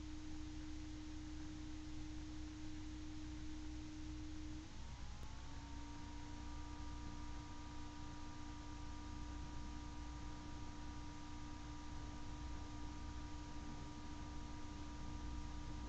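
Steady low hum and hiss under a high, pure whine. About five seconds in, the whine breaks off briefly, and higher whines glide up and then hold steady.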